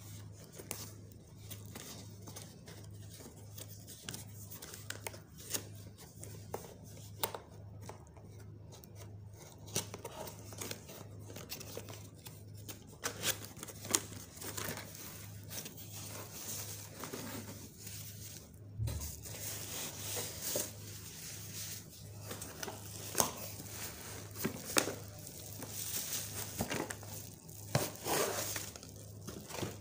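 A cardboard product box being opened by hand: scattered tearing, scraping and rubbing of cardboard, with crinkling of plastic bubble wrap near the end as the packed parts come out.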